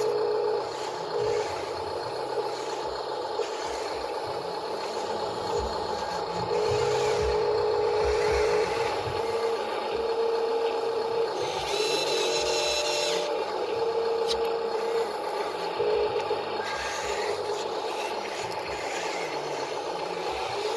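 Radio-controlled construction models at work: a small electric motor whine that switches on and off again and again, over scraping and rubbing of dirt and scattered knocks.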